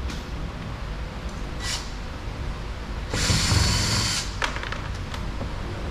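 A power drill spins for about a second, just past the middle, backing out a door trim panel screw, with a few light clicks and handling knocks around it.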